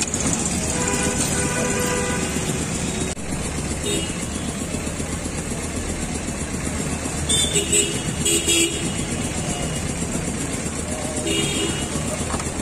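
Busy street traffic with passing motorcycles and vehicle horns honking: a held horn note for about two seconds near the start, two short loud blasts a little past the middle, and one more shorter toot near the end, over a steady hiss.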